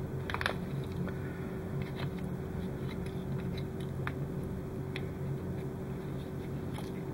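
Handling noise from a small plastic model part with bundled LED wiring being turned over in the fingers: a few faint clicks and crinkles over a steady low hum.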